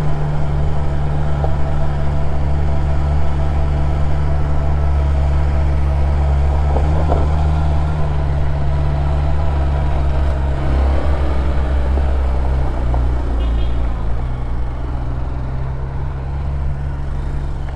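A vehicle engine running steadily with a low, even drone; its note wavers and shifts a little from about ten seconds in.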